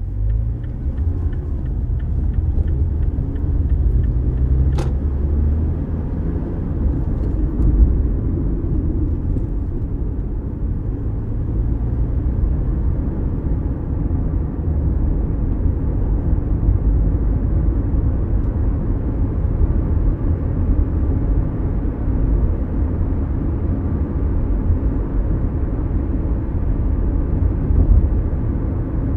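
Inside the cabin of a Mazda CX-5, the car pulls away: the engine note climbs through the first few seconds, then settles into a steady low rumble of engine and road noise while driving. A regular ticking fades out in the first few seconds, and there is one sharp click about five seconds in.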